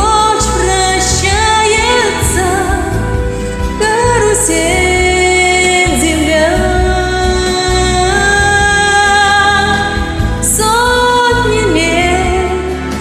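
A woman singing long held notes with vibrato over a karaoke backing track; no words can be made out.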